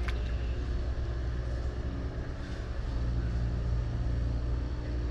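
An engine running steadily nearby: a low, even drone.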